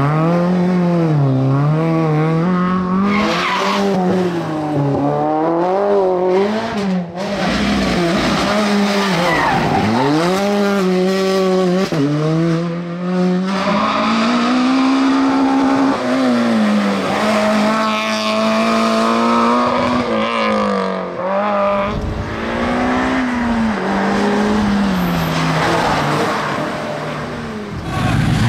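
Rally car engines revving hard and climbing through the gears, the pitch dropping away again and again on lift-off and downshifts for the bends, with tyre squeal.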